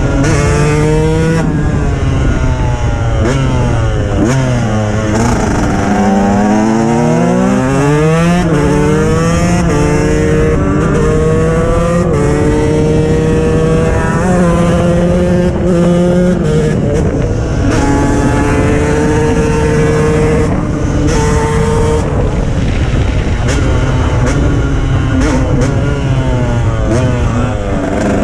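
KTM 125 EXC two-stroke enduro engine ridden hard, heard from the rider's seat: the revs climb and fall back again and again as it accelerates and shifts, with stretches held at a steady pitch in the middle. Heavy wind rumble on the microphone.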